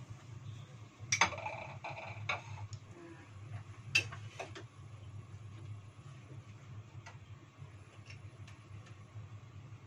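Hot frying oil in a small pot ticking and crackling with scattered small pops. A few sharper clicks stand out about a second in and about four seconds in.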